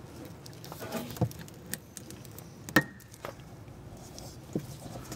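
Scattered clicks and knocks as an oxygen sensor wiring harness in its ribbed plastic loom is pulled out of brittle plastic retaining clips. The sharpest click, about halfway through, has a short ring.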